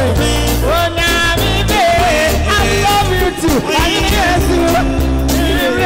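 Live gospel music: a singer's voice through a microphone over a band with heavy bass and drums.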